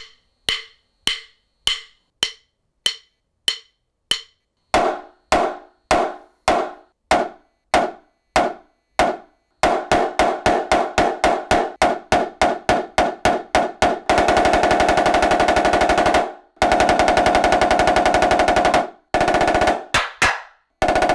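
Snare drum played in a small bedroom studio lined with acoustic panels. Single strokes come about two a second and get louder about five seconds in. From about ten seconds the strokes turn quicker, about five a second. From about fourteen seconds come sustained rolls broken by short gaps, and a few single strokes close it.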